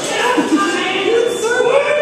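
Several people's voices talking and calling out at once in a club, the pitch of some sliding up and down.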